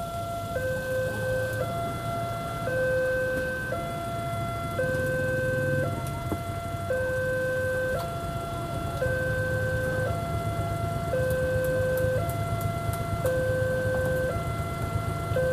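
Railway level-crossing warning alarm sounding: an electronic two-tone signal alternating between a higher and a lower tone about once a second, repeating steadily, over a low rumble.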